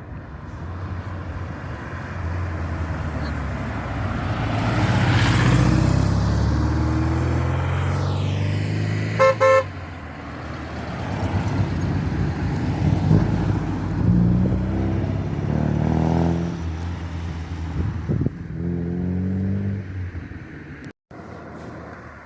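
Rally cars driving past one after another, their engines accelerating with rising pitch as each goes by. A car horn gives two short toots about nine seconds in.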